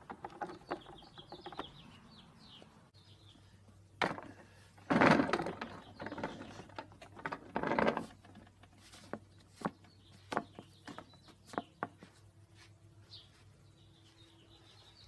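Scattered knocks and clatter of things being handled, with two louder rustling scrapes a few seconds in. Birds chirp faintly near the start and again near the end.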